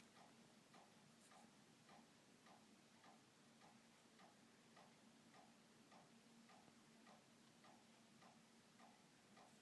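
Faint, regular ticking, about two ticks a second, over a low steady hum in an otherwise near-silent room.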